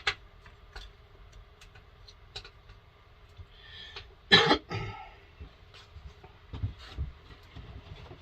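Scattered light clicks and knocks of things being handled, with a man coughing loudly once about four and a half seconds in, followed by a smaller cough.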